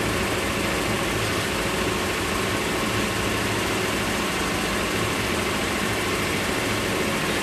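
A motorboat's engine running steadily while under way, a low even hum under a constant rush of wind and water.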